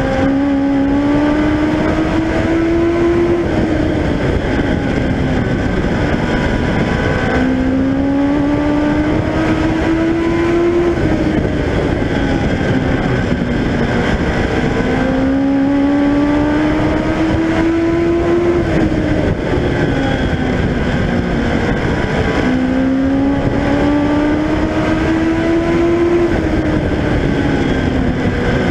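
Legend race car's Yamaha 1250 cc four-cylinder motorcycle engine at racing speed, heard onboard: the engine note climbs for a few seconds on each straight and drops away into each turn, rising and falling four times, once a lap.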